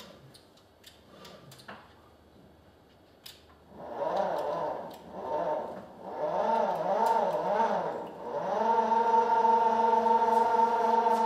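Electric motor of a Carolift 6900 wheelchair-loading crane running as it hoists a powered wheelchair into a car's boot. It makes a whine that starts about four seconds in, wavers up and down in pitch in short runs, then holds one steady pitch near the end. Before it there are only a few light clicks of handling.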